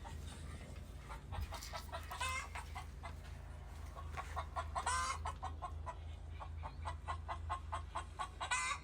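Chickens clucking: a run of short clucks with three longer, louder calls, about two seconds in, about five seconds in and near the end, over a steady low hum.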